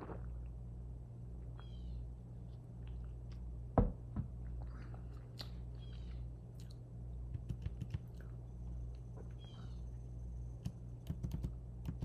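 Quiet sips of tea over a steady electrical hum, with a single thunk about four seconds in and a run of quick computer keyboard clicks near the end.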